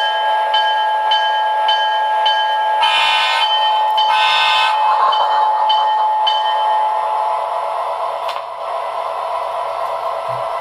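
MTH ProtoSound 2.0 sound system in an O-scale SD40-2 diesel model, playing a steady diesel engine drone from the model's onboard speaker. A bell rings about twice a second for the first six seconds, with two short horn blasts about three and four seconds in.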